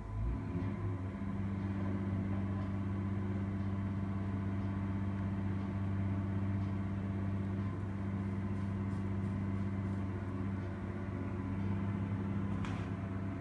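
Caterpillar 345 tracked excavator's diesel engine running steadily with a low hum, picking up about a second in as it works its pipe grapple on a long steel gas pipe.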